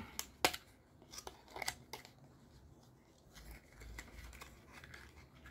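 Hands working a small cardboard box and sliding a flat pocket knife sharpener out of it: a few light clicks and scrapes in the first two seconds, then quieter rustling and handling.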